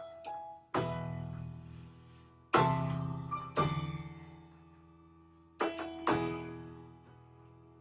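Solo improvised instrumental music: five loud chords, each struck sharply and left to ring and die away.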